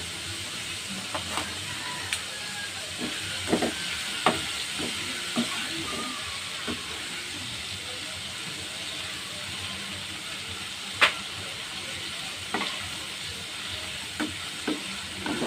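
Squid tentacles and fins deep-frying in hot oil in a wok over a high flame: a steady sizzle, with scattered sharp clicks as tongs stir the pieces, the loudest about eleven seconds in.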